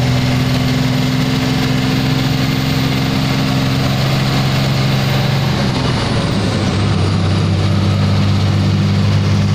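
Truck engine running steadily at a constant pace; about six seconds in its pitch drops a little and settles at a slightly lower, steady note.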